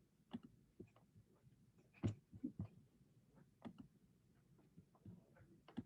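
Faint, irregular clicking of a computer mouse and keys being worked to start a screen share, about a dozen soft clicks scattered through otherwise near silence.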